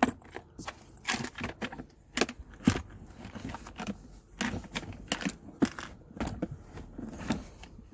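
Irregular clicks, knocks and rustling from wiring and tools being handled in a toolbox.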